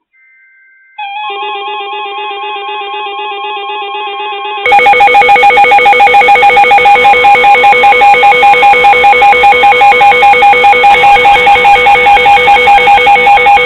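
Several NOAA weather alert radios sounding their electronic alarms as a new warning comes in: a warbling beeping tone starts about a second in, then a much louder alarm joins around four and a half seconds in, pulsing about four to five times a second over several steady tones. The alarms signal an incoming tornado warning.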